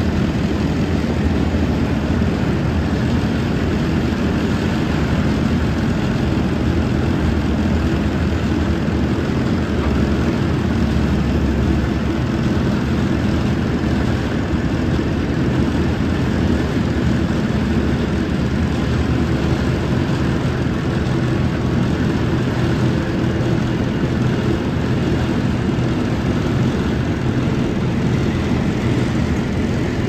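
Heavy diesel engines of a tracked road paver and the dump truck feeding it, running steadily with a low, even drone.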